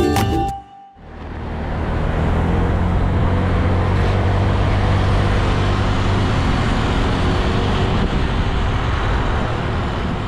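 Music cuts off within the first second; then steady road and traffic noise with a low engine hum, as from riding along a city road.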